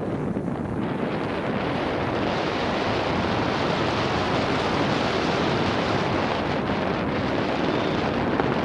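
Steady rush of wind over an action camera's microphone as a mountain bike rides downhill at speed, with tyre and trail rumble underneath.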